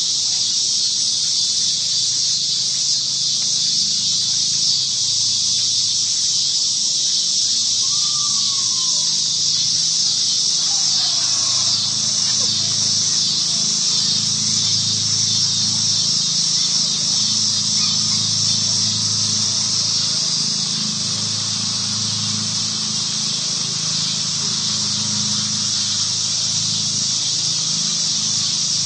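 A steady, high-pitched chorus of insects shrilling without a break, over a low steady hum. A few faint gliding calls come through about eight to eleven seconds in.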